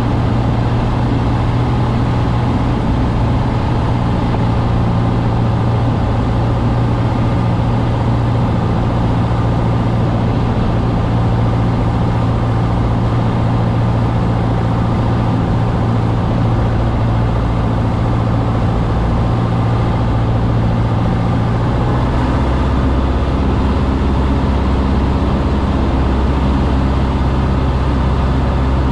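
Cessna 150's Continental O-200 four-cylinder engine and propeller droning steadily, heard inside the cabin on approach to land. Its low note changes about two-thirds of the way through, a change in engine power.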